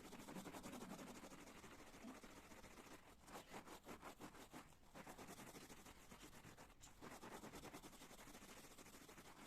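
Faint, irregular rubbing and scratching strokes from household cleaning by hand, such as a cloth or brush worked over a surface.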